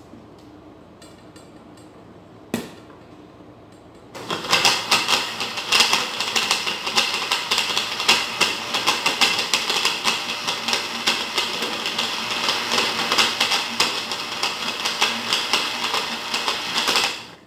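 Countertop blender running, mixing pancake batter. A single sharp click comes about two and a half seconds in, then the motor starts about four seconds in, runs steadily for some thirteen seconds, and cuts off just before the end.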